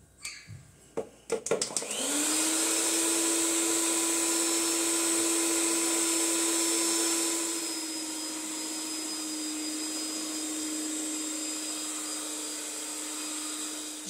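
A few knocks and clatters, then the Mondial Prática stand mixer's electric motor spins up about two seconds in and runs with a steady whir, its beaters mixing chocolate cake batter. The whir drops in level a little past halfway and keeps running.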